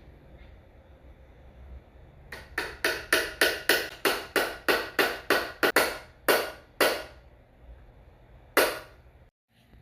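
A series of sharp hammer blows on metal, about four a second, each with a short ring, then a pause and one last blow.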